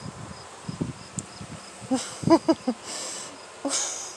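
Insects chirping in a steady high pulse, about three chirps a second. Soft low thumps in the first second and a half, a short burst of voice-like laughing about two seconds in, and two short hisses near the end.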